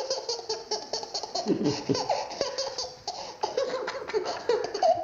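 A baby laughing hard, a long string of quick laughs, several a second, with squealing rises and falls in pitch.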